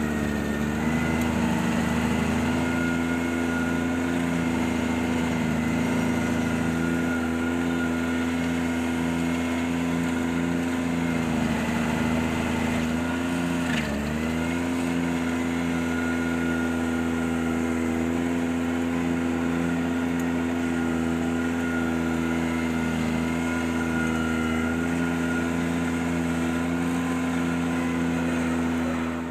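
Ventrac 4520Z compact tractor's engine running steadily at high speed while driving its stump grinder attachment. Its pitch sags briefly about halfway through and recovers.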